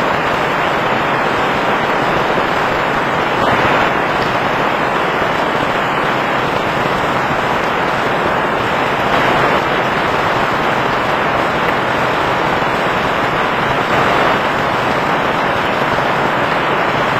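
Heavy rain pouring steadily, a dense unbroken hiss with slight swells every few seconds.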